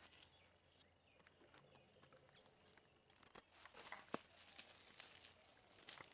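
Near silence, with faint rustling and scattered clicks that pick up in the second half.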